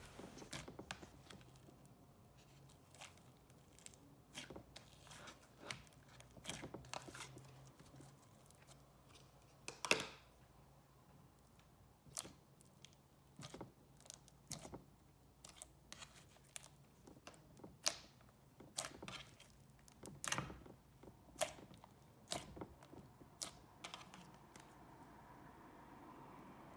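Thick, glossy slime with foam beads being squeezed, stretched and pressed by hand: scattered soft clicks and bubble pops, with sharper pops about ten and about twenty seconds in.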